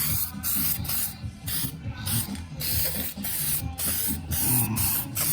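Aerosol can of epoxy primer spraying in short, repeated bursts of loud hiss, about two a second, as light coats are laid on car bodywork.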